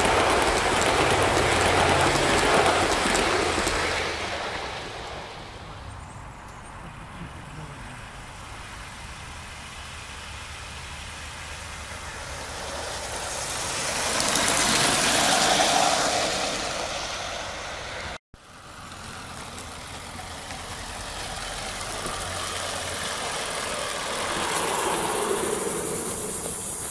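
Gauge-one live-steam model locomotives and their trains running past on garden track: wheels rumbling over the rails with steam exhaust hissing. The sound swells as each train passes close, loudest at the start and again about midway.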